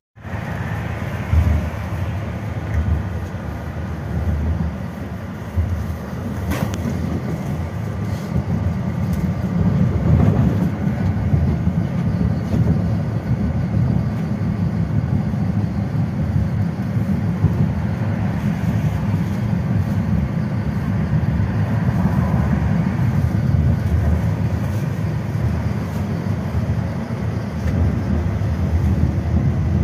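Tram running, heard from inside the car: a steady low rumble of the wheels and running gear on the rails.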